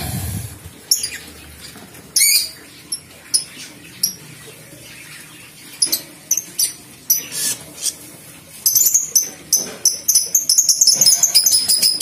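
Aviary budgerigars and lovebirds chirping: scattered short high-pitched chirps that turn into a dense, rapid chatter for the last few seconds.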